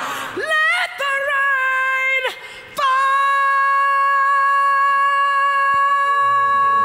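A woman's solo singing voice, unaccompanied: a few short wavering phrases, then a long high note held steady from about three seconds in. A band comes in underneath the held note near the end.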